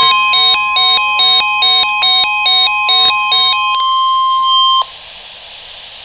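A weather alert radio sounding a warning: the steady NOAA Weather Radio warning alarm tone, with an electronic alarm beeping over it about two to three times a second, alternating in pitch. The beeping stops about three and a half seconds in and the steady tone cuts off about a second later, leaving faint radio hiss. The tone signals that a warning message, here a flash flood warning, is about to be read.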